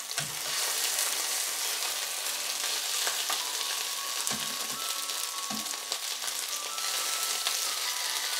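Salmon fillets sizzling steadily in hot oil in a nonstick frying pan, with a few soft knocks as tongs turn the pieces onto their sides.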